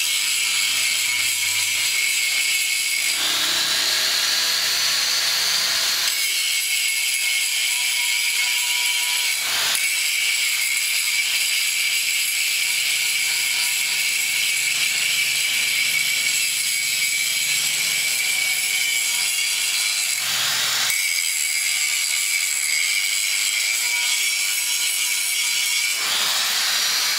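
Angle grinder running steadily against a boat propeller blade, a loud high-pitched grinding whine that shifts in pitch several times as the disc's load changes. The blade is being dressed after striking a rock.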